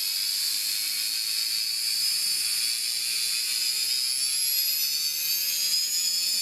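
Desoutter Type 3 air die grinder running on compressed air, a high whine over a hiss, rising slowly in pitch as its slide throttle is opened towards wide open.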